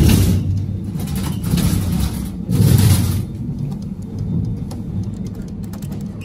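Otis hydraulic elevator, modernized by Schindler, with the cab in motion: a steady low rumble, with louder rushing surges at the start and again about two and a half seconds in.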